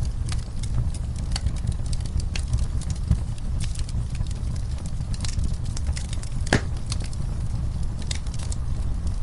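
Wood fire in a fireplace crackling, with many small irregular snaps over a low steady rumble of flames. One louder pop comes about six and a half seconds in.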